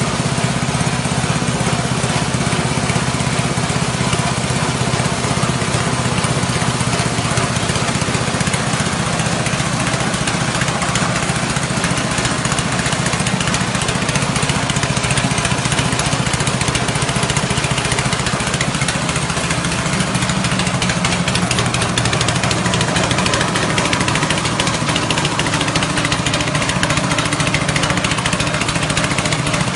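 Rice-husk grinding machine driven by a 6.5 hp petrol engine, running steadily under load while it mills husks into fine bran. There is a steady engine drone, with an even rushing noise from the milling chamber over it.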